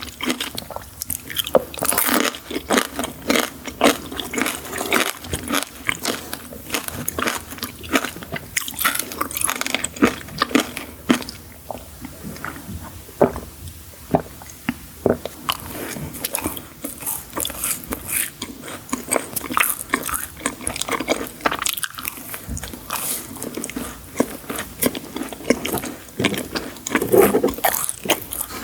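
Close-miked eating of sweets: a person biting and chewing, with many irregular sharp crunches.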